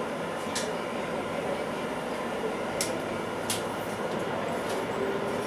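Class 710 Aventra electric train running, heard from inside the carriage: a steady rumble and hiss with a few short sharp clicks, and a faint whine that rises slowly in pitch near the end.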